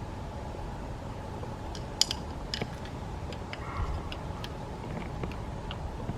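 Scattered light metal clicks and clinks of hand tools and engine parts being handled during an LS engine teardown, the sharpest about two seconds in, over a steady outdoor background rush.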